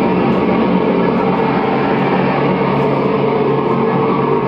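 Loud, steady music with long held notes.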